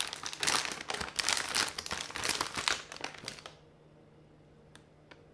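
A large plastic bag of marshmallows crinkling as it is handled, for about three and a half seconds. Then it goes almost quiet, with a couple of faint clicks.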